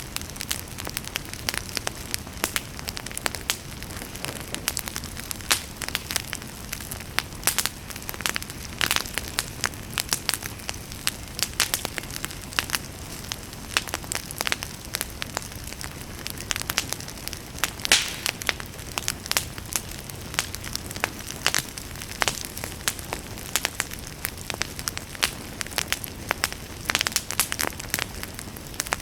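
Wood fire crackling, with many sharp irregular pops and snaps over a steady low hiss.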